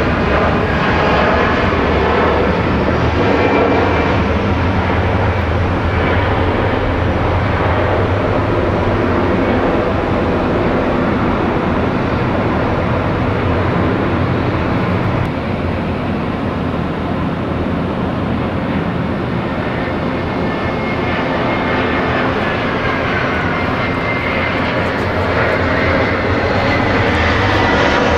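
Jet airliner engines at high power during a takeoff, a loud, steady rumble with a whine, the whine sliding down in pitch near the end.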